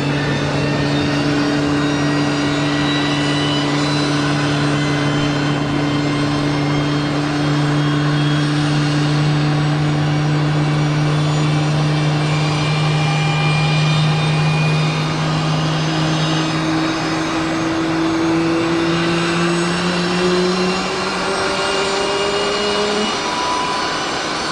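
Airbus A320neo's number-two engine, a CFM LEAP-1A turbofan, spooling up during engine start. It makes a steady droning whine of several tones that begins to climb slowly in pitch past the middle as the engine gains speed.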